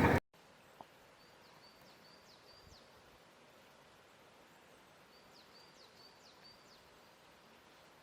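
Loud wind noise on the microphone cuts off at the start, leaving a quiet outdoor background. A small bird chirps faintly in two short runs of quick high notes.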